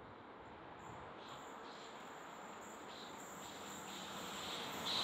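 SNCF BB 26000-series electric locomotive running light and approaching from a distance: a faint rush of wheels on rail that grows steadily louder, with a high-pitched hiss from the rails that comes and goes.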